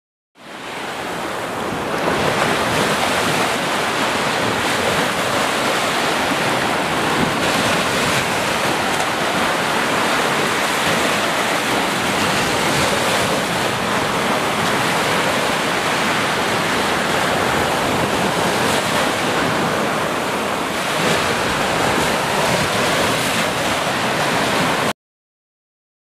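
Small waves breaking and washing up a sandy beach: a steady rush of surf that fades in over the first couple of seconds and cuts off suddenly near the end.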